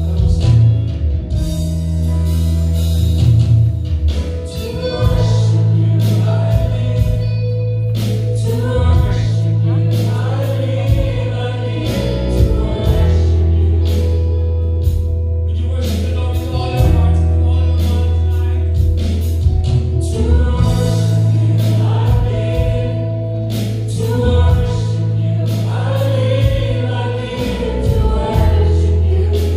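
A live church praise and worship team singing gospel music together, backed by a band with held bass notes that change every few seconds and steady drum hits.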